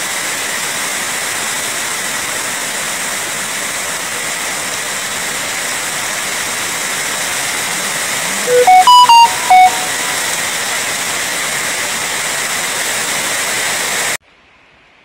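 Floodwater from an overflowing reservoir pouring steadily over a concrete spillway edge, a continuous rushing. About nine seconds in, a few short, loud whistle-like tones sound over it. The rushing stops abruptly about a second before the end.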